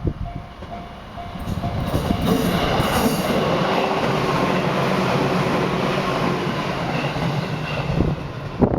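Hachikō Line electric train passing over a level crossing: a steady rumble and rattle of wheels on the rails that builds about a second and a half in and runs until near the end. A crossing bell is ringing at the very start.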